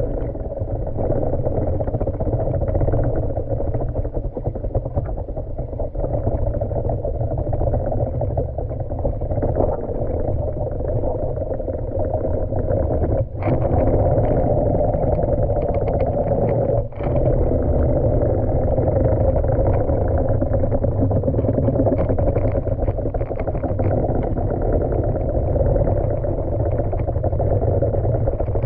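Steady, muffled underwater rushing and rumble of a manual pool vacuum head and its suction hose being pushed across a tiled pool floor, heard through a waterproof action-camera housing strapped to the head. It dips out briefly twice about halfway through.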